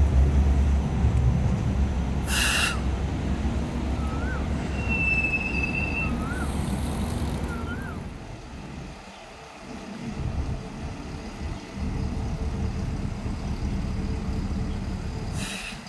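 Hong Kong Light Rail Phase 4 light rail vehicle rumbling as it pulls away along curved track, with a short hiss of air about two seconds in and a brief high squeal a few seconds later. After a fade, steady road traffic with buses, with another short air hiss near the end.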